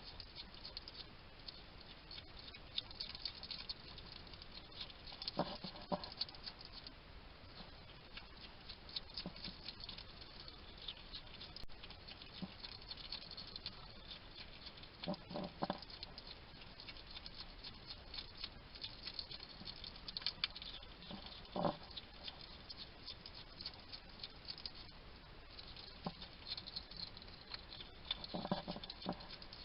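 European hedgehog eating, with rapid fine crunching clicks of chewing. Every few seconds it gives a short low grunt, its 'chatting' while it feeds.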